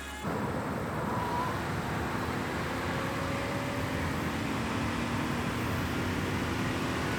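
Steady noise of a car on the move, engine hum under tyre and road noise, cutting in suddenly just after the start.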